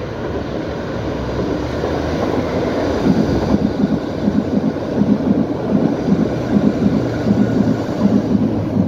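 Berlin U-Bahn train passing close by. A rumble builds as it approaches, then from about three seconds in its wheels give a rhythmic clatter over the track as the cars go by.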